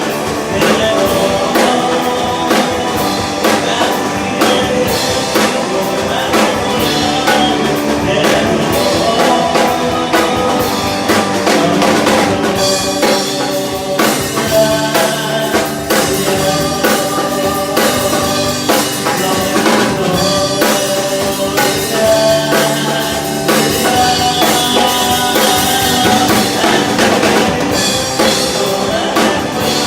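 Live rock band playing a song at full volume, with drum kit, bass and electric guitar.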